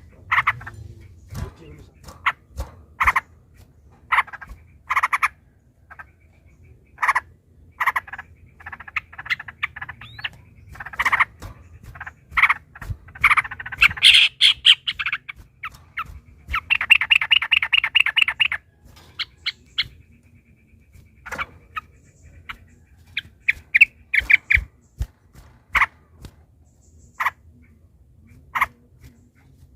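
Yellow-vented bulbul (trucukan) singing: short bubbly call phrases every second or so, then a long rapid trill about 17 seconds in.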